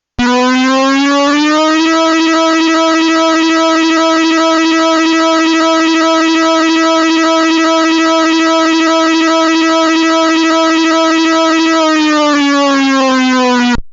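Synthesized electronic siren tone, buzzy and rich in overtones. It comes on suddenly and rises a little in pitch over the first second and a half, then holds steady for about ten seconds. Near the end it slides back down and cuts off abruptly.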